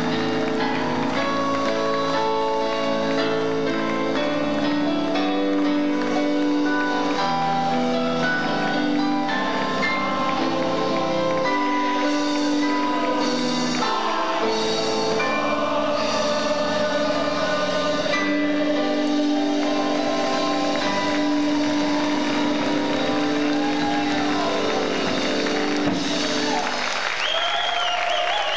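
Instrumental stage music of held notes and chords, live from the audience through a camcorder microphone. Near the end the music stops and the audience breaks into applause and cheering.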